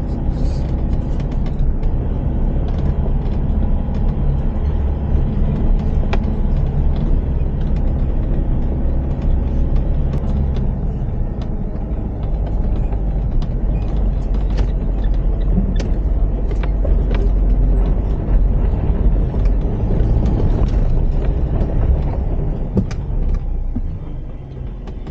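Inside the cab of a Mitsubishi L200 pickup towing a caravan slowly over a rough dirt track: steady low engine and road rumble, with frequent short knocks and rattles from the bumpy ground. The rumble grows louder around the middle and eases near the end.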